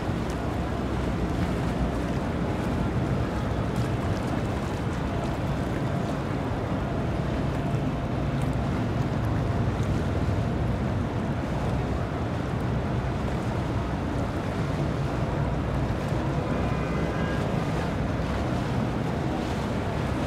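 Outboard-powered boats running steadily past at close range, engine drone mixed with water washing off the hulls and wind buffeting the microphone.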